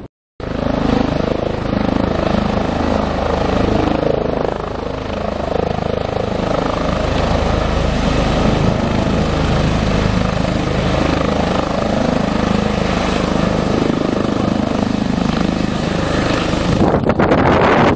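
Airbus H145 twin-turbine helicopter hovering low and close: the steady, loud noise of its engines, main rotor and shrouded Fenestron tail rotor. It comes in after a brief silent gap about half a second in.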